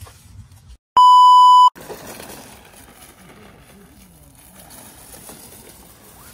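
A single loud electronic bleep, a steady tone at one pitch lasting under a second, about a second in, cut into the soundtrack like a censor bleep. Faint outdoor background follows.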